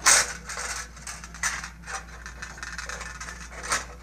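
Handling noise as a fish wire is worked loose at the top of a metal-and-plastic tower frame: irregular scrapes and rattles, the sharpest right at the start, with more about a second and a half in and near the end.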